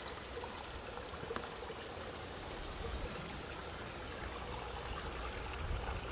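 Small shallow stream trickling steadily: an even wash of water noise.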